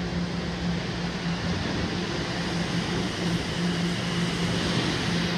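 Toronto Rocket subway train pulling into an underground station: a steady rumble with a low hum, slowly growing louder as it comes in.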